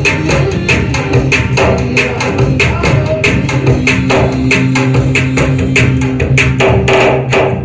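Electronic percussion pads struck with drumsticks, a sampling pad and a Roland HandSonic giving tabla- and drum-like sounds in a quick, even beat of about four to five strokes a second. Steady held notes sound underneath.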